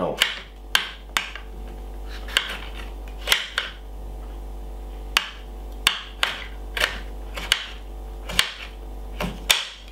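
Chef's knife chopping peppers on a glass cutting board: sharp, irregular clacks of the blade striking the glass, roughly one or two a second, over a steady low hum.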